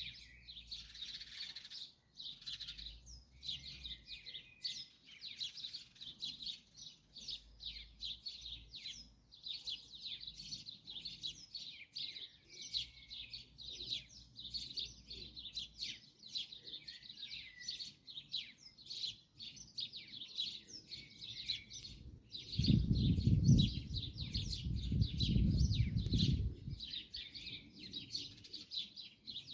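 Small birds chirping and singing continuously in quick, overlapping notes. About three-quarters of the way through, a low rumble lasting about four seconds rises over them and is the loudest sound.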